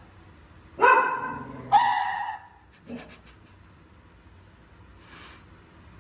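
Doberman barking twice in quick succession, then a few faint clicks.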